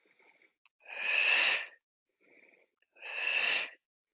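A person breathing audibly and forcefully through a held yoga side plank, taking counted breaths. There are two strong, hissing exhalations about two seconds apart, each lasting about a second, with soft inhales between them.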